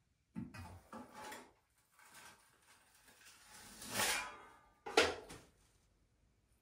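Steel plastering trowel scraping over a hawk and across plasterboard as multi-finish plaster, mixed too thick, is loaded and spread on the wall: a run of short scraping strokes, the loudest swelling about four seconds in and a sharper one about a second later.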